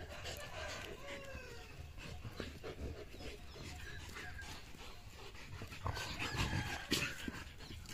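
An adult German Shepherd and a German Shepherd puppy play-fighting: panting and short whines, with scuffling and knocks as they tussle. The scuffling grows louder around six to seven seconds in.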